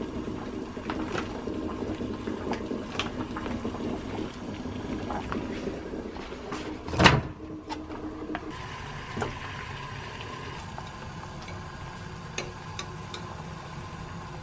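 Kitchen cooking sounds: scattered clicks and taps of packaging and utensils, a sharp knock about seven seconds in, then a steady hum through the second half.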